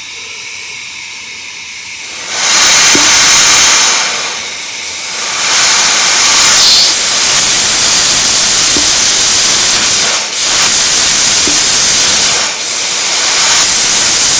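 Safety valve on a Stuart Models James Coombes model vertical boiler blowing off compressed air, tested from a shop airline: a fainter hiss at first, then a loud steady hiss from about two seconds in as the valve lifts, faltering briefly three times. The valve lifts at about 55 to 60 psi.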